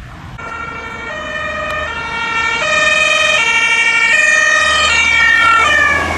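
Two-tone German emergency siren (Martinshorn) on an ambulance, stepping between a high and a low note about every three-quarters of a second and growing louder as it approaches. Near the end the pitch slides down as the ambulance passes, with its engine heard underneath.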